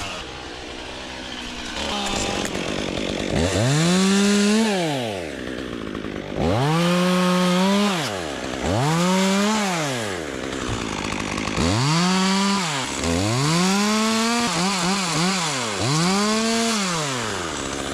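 Gas chainsaw revved to full throttle in about seven repeated bursts, dropping back toward idle between each. This is the pattern of cutting branches from a tree.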